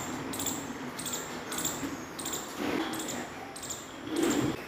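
Indian palm squirrel calling: a short, high chirp repeated steadily about once every 0.6 seconds. A brief, louder low sound comes near the end.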